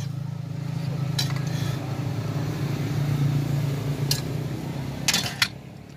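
A metal spatula clinks and scrapes on a steel griddle plate a few times, loudest near the end, over a steady low hum.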